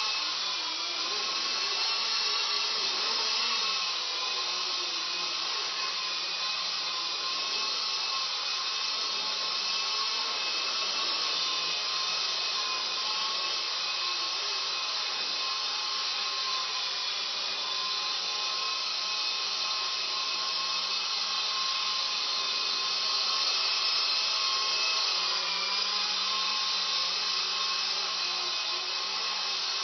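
Blade 120 SR electric micro RC helicopter flying: a steady high whine from its electric motors and spinning rotors, the pitch wavering slightly now and then as it manoeuvres.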